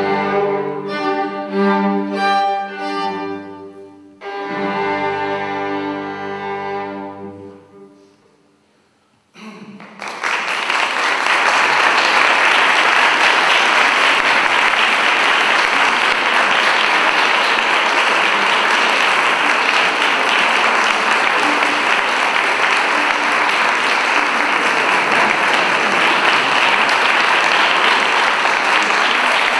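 A string quartet of violins and cello plays its closing sustained chords, the last one held and dying away about eight seconds in. After a moment's silence, an audience breaks into steady applause, the loudest and longest sound here.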